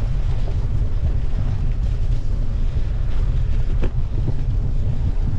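Wind buffeting the microphone of a camera on a moving bicycle, a loud steady rumble, with a few short knocks from the bike jolting over the rough grass track about three to four seconds in.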